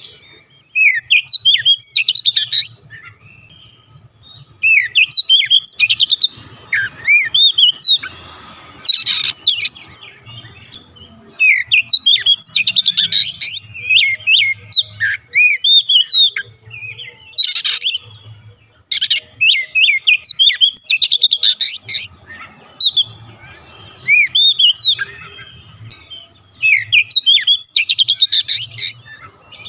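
Oriental magpie-robin singing in repeated bouts of quick, varied whistled phrases, each a second to a few seconds long with short pauses between. A few harsh, rasping notes are mixed in.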